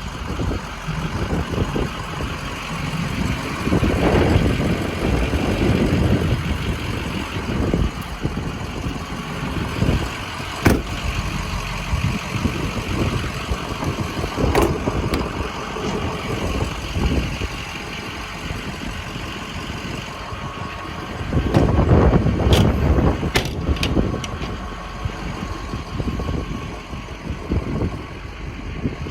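Ford 6.0 Power Stroke V8 turbo diesel idling steadily. The sound swells louder twice, and a few sharp clicks or knocks come through.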